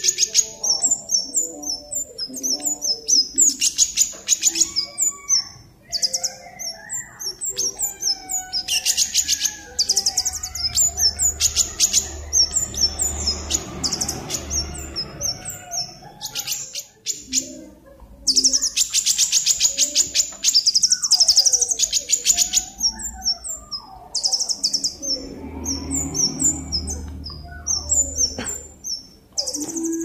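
Scarlet-headed flowerpecker (cabe jawa) singing: bursts of very fast, high-pitched trills and sharp ticking notes come one after another with short gaps between them. Fainter, lower bird calls sound in the background.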